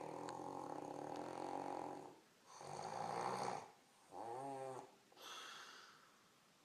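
A woman snoring in her sleep, described as really loud: a long snore of about two seconds, a breathy snore, a short higher snort with a wavering pitch about four seconds in, then another breath trailing off.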